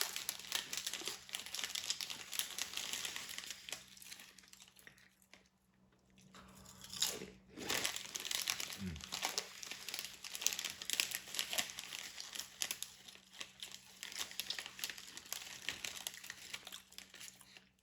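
Close-miked chewing and crunching of food, with some wrapper crinkling; the chewing lulls briefly about six seconds in.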